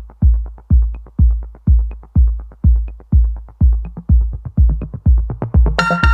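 Electronic intro music: a kick drum beating steadily about twice a second with a light higher tick on every second beat, and synth chords coming in near the end.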